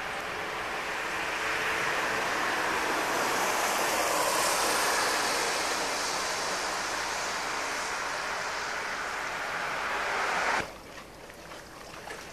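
A vehicle passing by: a noisy rush that swells to its loudest about four to five seconds in and then fades. It cuts off suddenly near the end to a softer background hush.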